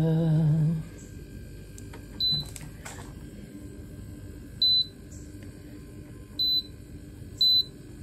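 Short, high electronic beeps from a Luko 12 V camping fridge's control panel as its buttons are pressed to release the keypad lock: four single beeps, a second or two apart, over a faint steady hum.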